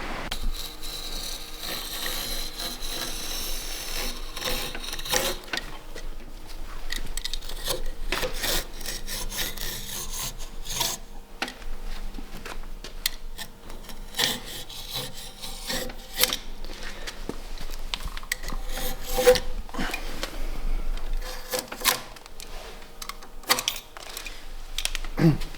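Hand work on wood: irregular rubbing and scraping strokes with sharp scrapes and small knocks between them.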